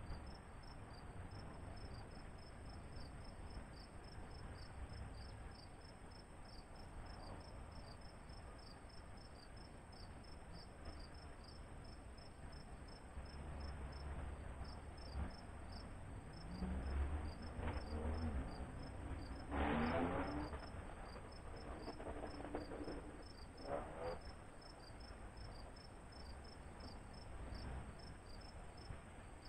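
Insect chirping: a steady, even run of high-pitched pulses, over a low background rumble. Just past the middle come a few short, louder calls that rise in pitch.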